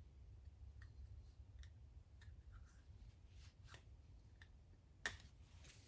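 Faint, scattered small clicks and ticks of metal engine parts being handled by hand, with one sharper click about five seconds in, over a low room hum.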